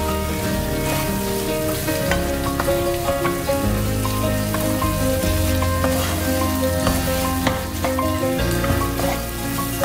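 Prawns and petai beans sizzling in sambal in a frying pan, stirred with a spatula that ticks and scrapes against the pan, under steady background music.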